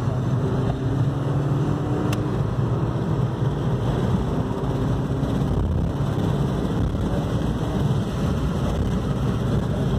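Suzuki Swift Sport's 1.4-litre BoosterJet turbo four-cylinder running at speed, heard inside the cabin over steady road and wind noise. The engine note rises slightly in the first few seconds, then holds steady.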